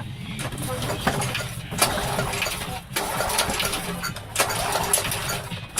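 Small engine of a push lawn mower running, freshly brought back to life after cleaning, dropping off briefly about three seconds in, again a little after four, and near the end before picking up again.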